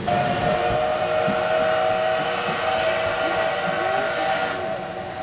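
A train whistle sounding one long, steady blast that starts suddenly and fades out after about four and a half seconds.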